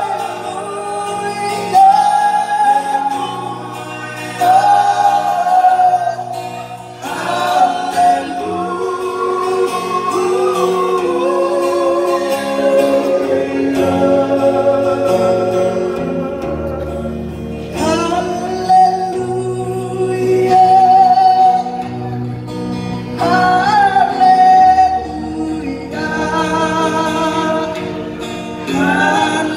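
A male lead singer sings into a microphone, backed by a group of male voices in harmony and a strummed acoustic guitar. The song is sung in phrases with long held notes.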